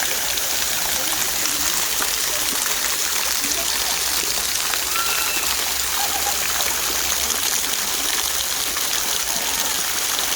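Mountain valley stream running: a steady, even rush of water. Faint distant voices come through once or twice near the middle.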